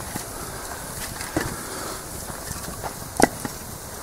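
Campfire under a cooking griddle, with a steady hiss and a few sharp wooden clicks and knocks as pieces of wood are handled on the rack, the loudest about three seconds in.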